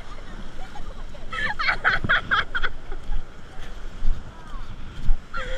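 Wind buffeting the microphone over the wash of small waves on a sandy shore, with a person's voice calling out for about a second in the middle.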